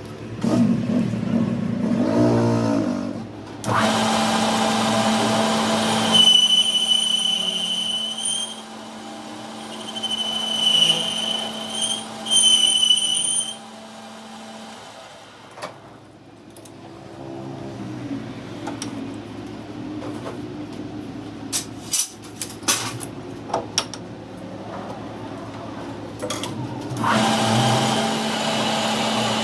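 Workshop power tool running with a steady motor hum and a high-pitched whine in three stretches, then a few sharp metallic knocks, and the machine running again near the end.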